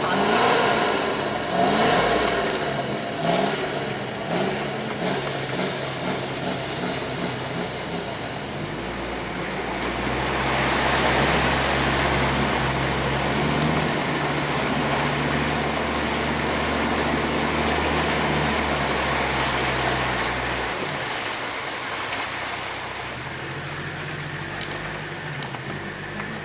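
Land Rover Discovery's Td5 five-cylinder turbodiesel engine heard from inside the cabin, working under load as the vehicle wades through a muddy water splash. From about ten seconds in the engine pulls harder and a rushing wash of water joins it for roughly ten seconds, then both ease off.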